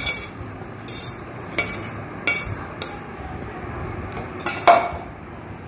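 Perforated stainless-steel spoon scraping and clinking against stainless-steel bowls as rice is scraped from one bowl into another and stirred. There are sharp clinks every half second to a second, the loudest near the end.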